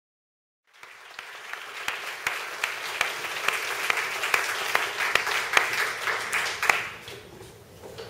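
Audience applauding, many hands clapping, cutting in suddenly just after the start and dying down about a second before the end.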